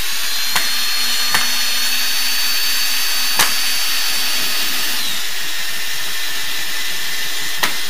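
Cordless drill-driver running steadily as it drives a self-tapping screw into the shower cabin's aluminium arc profile, drawing the upper arc tight. The motor whine dips in pitch about five seconds in, and a few sharp clicks sound from the bit and screw.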